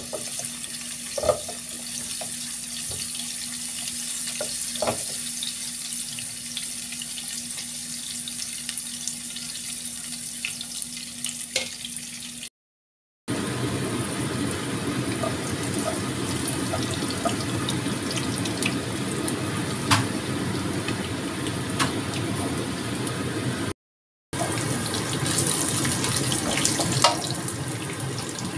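Chopped garlic sizzling in hot oil in a nonstick wok, with a few light taps of a silicone spatula against the pan. The sizzle cuts to silence twice, briefly.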